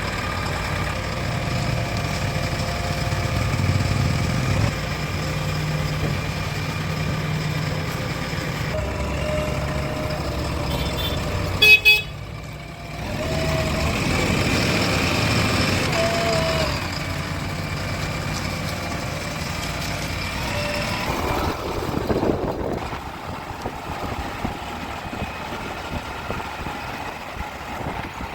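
Diesel engines of a backhoe loader and tractors running, with a short, loud horn toot about halfway through.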